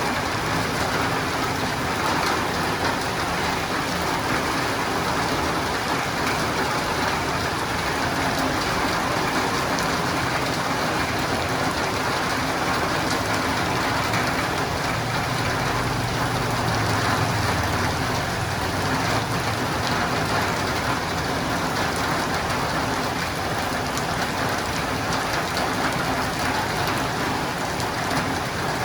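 Steady, heavy rain hitting a roof and windows, an even dense hiss of drops. A low rumble swells briefly just past halfway.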